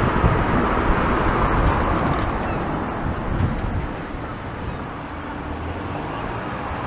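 Road traffic passing, a steady rush of tyre and engine noise that is loudest in the first three seconds and then eases off.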